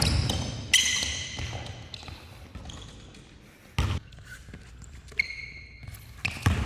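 Basketball bouncing on an indoor court, with sharp knocks from the ball and short high squeaks. The loudest knocks come about a second in and near four seconds.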